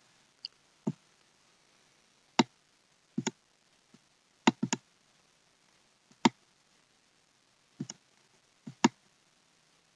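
Computer mouse clicking: about a dozen sharp, irregular clicks, several in quick pairs.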